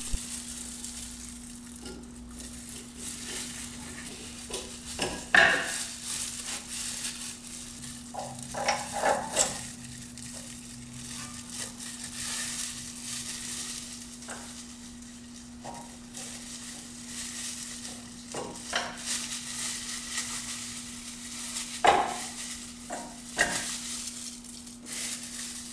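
Hands working a brake caliper over new pads and rotor: scattered short metal clinks and knocks, with the crinkle of disposable plastic gloves, over a steady low hum.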